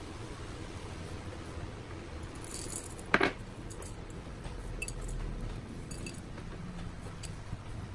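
A single sharp clink on the glass mixing bowl about three seconds in, ringing briefly, with a few faint taps and handling sounds as the dough is shaped and lifted, over a steady low background hum.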